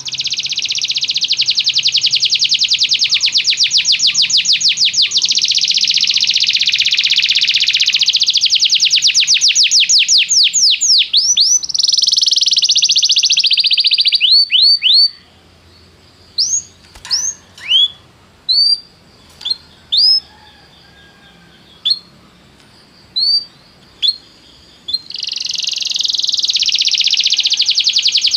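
Domestic canary singing: a long, very fast rolling trill of about fifteen seconds that ends in quick sliding notes, then a few scattered single chirps, and another long trill beginning near the end.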